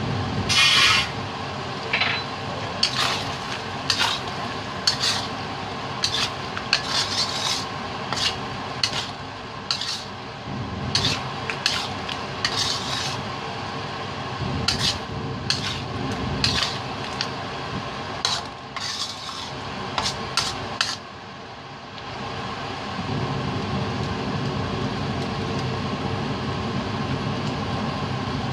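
A utensil stirring and scraping through thick creamy chicken à la king in a stainless steel pan, in many short strokes, with a louder metal clatter about a second in. The stirring stops about 21 seconds in, leaving a steady low background rumble.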